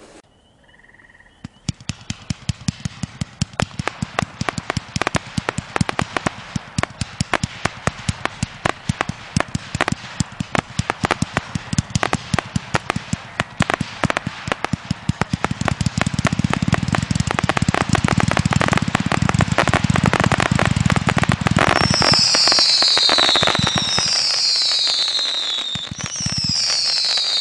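WINDA Amazing Ballet 220-shot 500-gram firework cake firing, its tubes going off in a rapid string of pops, many per second. The firing gets denser and louder about halfway through, and near the end whistling shots come in, each a falling whistle, four in all: the cake's whistling finale.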